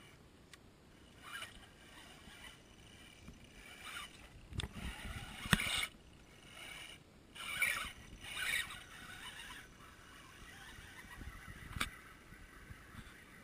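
Axial Wraith RC rock crawler driving through muddy puddles: irregular splashing and sloshing of its tyres in water and mud, with a sharp knock about five and a half seconds in and another near the end.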